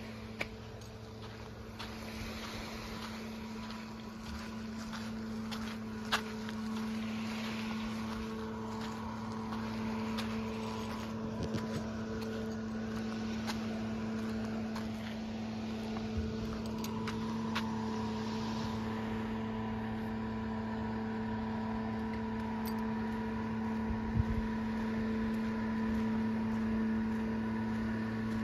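A steady mechanical hum from a running motor or engine, with a few scattered clicks and knocks.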